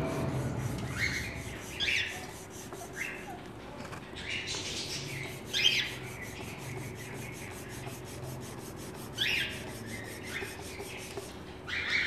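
A garlic clove being rubbed on a wet stone block, making soft rasping scrapes in short, irregular strokes as it is grated into the water.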